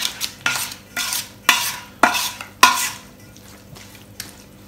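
A metal spoon stirring a thick yogurt marinade in a stainless steel bowl: a run of scraping strokes about half a second apart, each with a faint metallic ring from the bowl, easing off after about three seconds.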